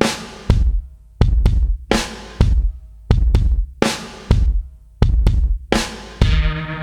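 Music with a drum-kit beat: heavy bass-drum kicks and snare hits repeating at a steady tempo, with sustained chords coming in near the end.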